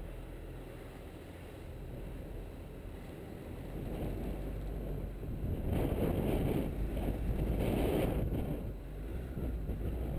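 Wind rushing over the microphone of a camera mounted on the bonnet of a moving car, over a low rumble of the car driving along the road. The wind swells twice, a little past halfway and again near the end.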